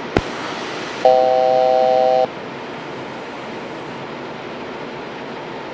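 A single cockpit aural alert tone in a Gulfstream 200 flight deck: a steady three-note chord held for just over a second, cutting off sharply, over the steady hiss of air and engine noise in the cockpit. A short click comes just before it.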